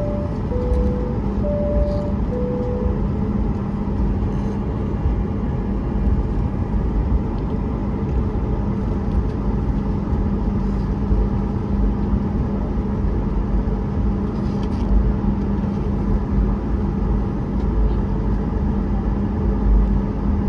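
Steady drone inside a Boeing 737 MAX 8's cabin on the ground, with a constant low hum. It opens with the cabin chime sounding twice, two high-low ding-dongs.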